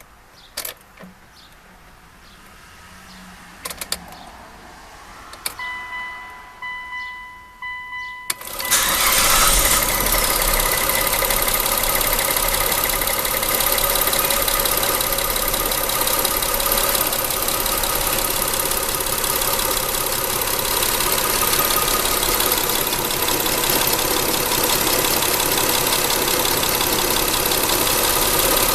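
A few clicks and a repeating chime, then about eight seconds in the Mitsubishi Endeavor's 3.8 L 6G75 V6 cranks, catches on a cold start and runs with a loud, rapid clacking from a failing hydraulic timing-belt tensioner.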